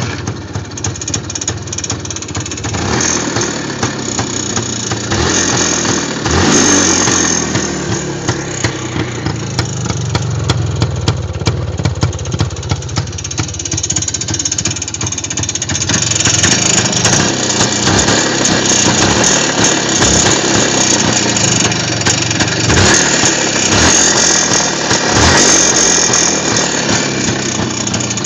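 IZh Planeta motorcycle's single-cylinder two-stroke engine catching abruptly and running, revved up and down several times. The engine is worn and due for a major overhaul.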